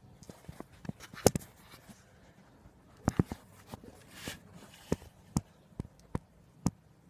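Scattered clicks and knocks of hand work on the car, the loudest about a second in and a string of single knocks near the end, with a brief hiss about four seconds in.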